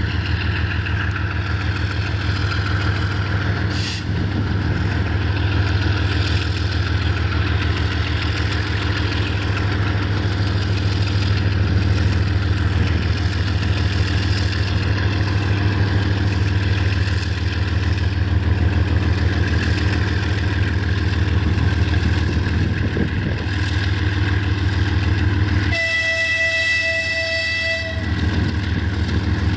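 A pair of GE TE33AC diesel-electric locomotives with GEVO-12 engines running with a steady low drone as they haul a freight train slowly past. About 26 seconds in, the locomotive horn sounds once for about two seconds.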